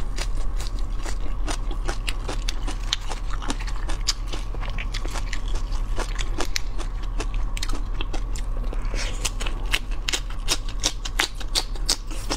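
Someone eating seafood close to the microphone: rapid crunching, chewing and wet mouth clicks, many sharp crackles one after another, over a steady low electrical hum.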